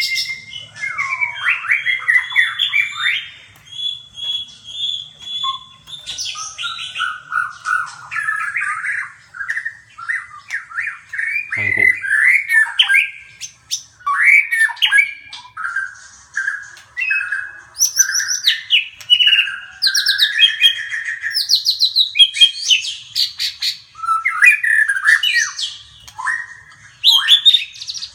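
Songbirds singing in quick, varied warbling phrases with harsh squawks mixed in, almost without pause. There is a single short knock about twelve seconds in.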